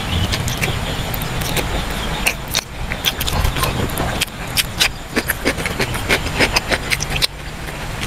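Close-up eating sounds of a person chewing braised pork leg: wet, irregular smacks and mouth clicks over a steady low rumble.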